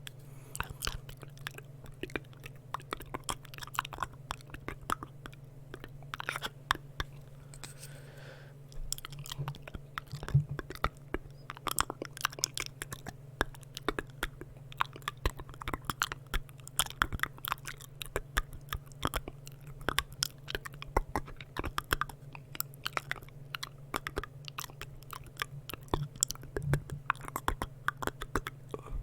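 Close-miked ASMR mouth sounds: rapid, irregular wet clicks and smacks of tongue and lips, several a second, over a steady low hum.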